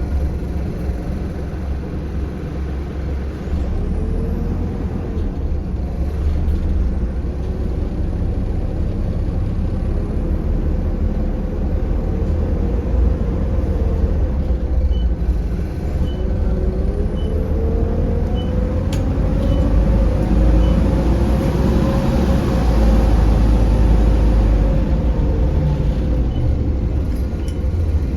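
Optare Solo M900 bus running, heard on board: a steady low engine rumble whose pitch rises and falls as the bus pulls and changes speed. Air hissing swells up about three-quarters of the way through.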